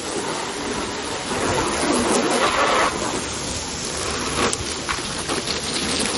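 Water jetting from a garden hose into the cut-open half of a plastic heating oil tank: a steady hiss and splatter as the spray hits the plastic and the shallow water pooling in the bottom.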